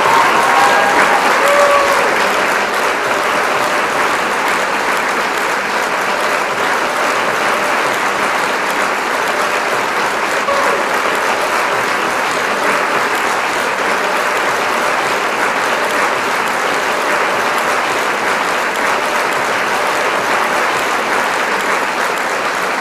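Loud, steady rush of floodwater: an even, unbroken wash of water noise that does not change.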